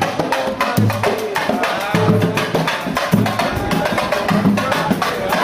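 Live Brazilian samba-pagode percussion: a fast, steady clatter of small hand percussion over deep drum beats, with voices singing along.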